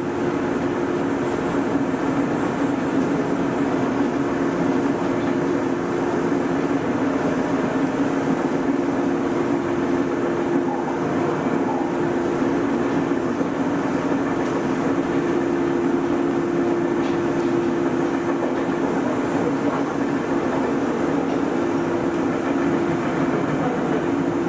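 Nagoya Municipal Subway 3000-series electric train running at a steady speed, heard from inside the front of the car: an even running noise with a steady two-note hum.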